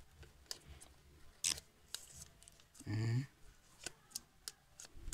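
Crisp crackles, snaps and ticks of thin plastic film being peeled and crumpled off a new smartphone, with one sharp hissy snap about one and a half seconds in.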